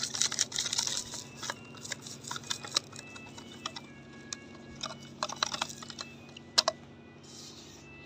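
Hand digging and scraping through dry sand: irregular gritty scratches and clicks, thickest at the start and again about five to six seconds in.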